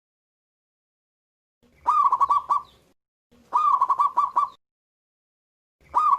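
Zebra dove (perkutut) cooing: two complete phrases of its song, each a rising opening note followed by a quick run of short, clipped notes, with a third phrase beginning near the end.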